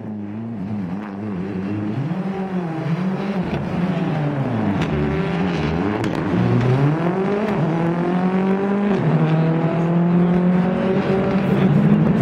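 Rally car engine revving hard as the car approaches, its pitch climbing and then dropping back several times as it changes gear and lifts off for corners, getting steadily louder.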